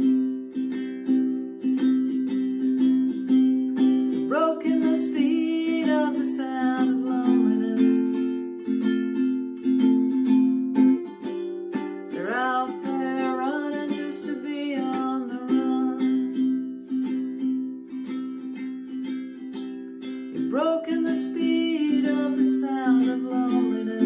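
Ukulele strummed steadily in chords, with a voice singing over it in three phrases, starting about four, twelve and twenty-one seconds in.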